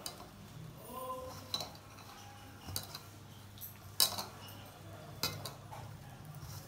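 Hands working flour and ghee in a stainless steel bowl, with sharp metallic clinks of bangles and fingers knocking against the bowl about once every second or so, the loudest about four seconds in.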